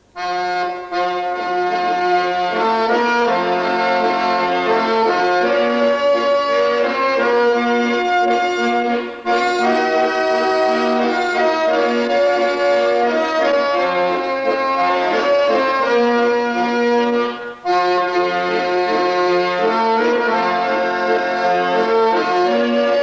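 Piano accordions playing a tune in sustained chords and melody, breaking off briefly twice, about 9 and 17.5 seconds in.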